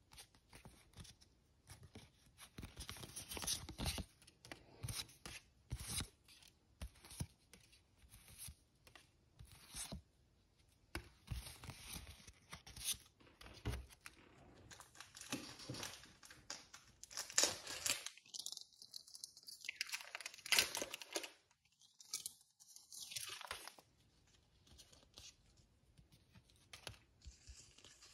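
Irregular rustling, crinkling and tearing of packaging being handled, a run of short scratchy crackles.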